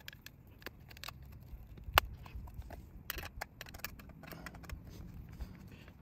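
Screwdriver clicking and scraping against a small metal exhaust muffler's end cap as its screws are turned in, with one sharp click about two seconds in standing out over a low steady background.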